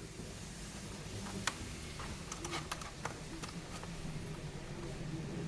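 Scattered light plastic clicks as the snap-fit plastic case of an ASUS X540SA laptop is pried apart by fingernail.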